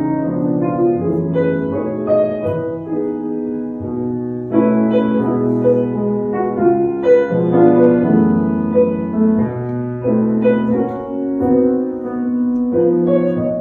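Background piano music, a run of sustained notes and chords.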